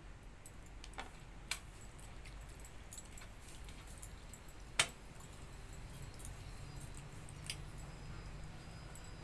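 Light metallic clinks and jingles from bangles and fingers against a steel bowl as a hand mixes watered rice, with one sharper click a little before halfway.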